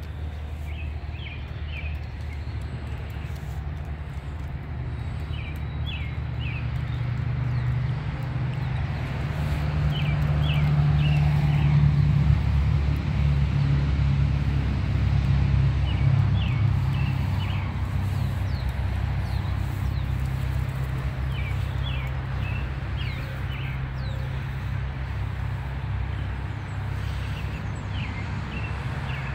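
Low, steady engine rumble of a motor vehicle that builds to its loudest about halfway through and then slowly eases. A small bird gives short chirp phrases every few seconds.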